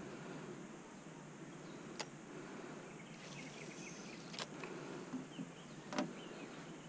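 Quiet outdoor lakeside ambience with a few faint clicks, the loudest about six seconds in, and some faint high chirps about three seconds in.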